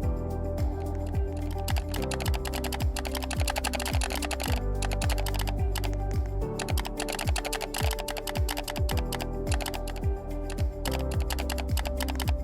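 Fast typing on a computer keyboard, a dense run of keystroke clicks broken by a couple of brief pauses, over background music with a steady beat.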